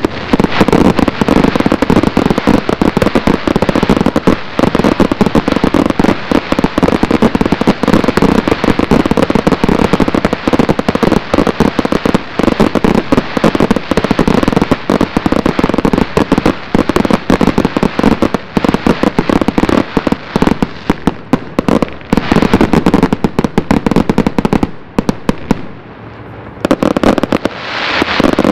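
Aerial fireworks display: a dense, unbroken run of rapid shell bursts and bangs, easing briefly about three-quarters of the way through before picking up again near the end.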